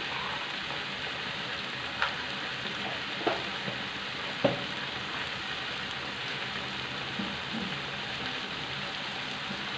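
Chilli sauce with squid and chicken sizzling steadily in a wok, with three short knocks, most likely the metal spatula against the pan, between about two and four and a half seconds in.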